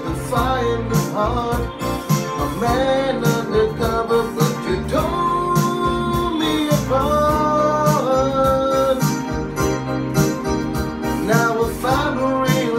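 A man singing a slow pop song to his own accompaniment on a Yamaha electronic keyboard, with held, gliding vocal notes over keyboard chords and a steady backing beat.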